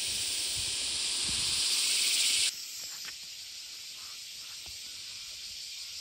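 Steady high-pitched hiss of forest ambience, louder for the first two and a half seconds, then dropping suddenly to a fainter hiss that carries on.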